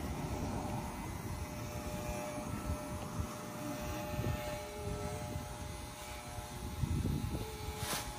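Corded electric dog clippers running with a steady buzz while being worked through a long, shaggy coat.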